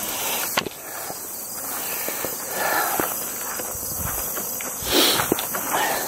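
Footsteps and handling noises over a steady high insect buzz, with a sharp click about half a second in and a louder scuff near the end.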